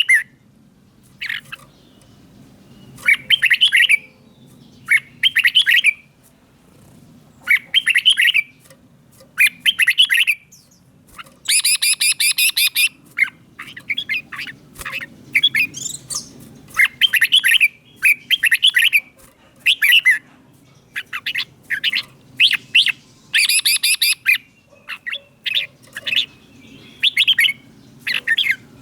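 Red-whiskered bulbul singing: short, warbling whistled phrases repeated every second or two, with a couple of harsher, buzzier bursts along the way.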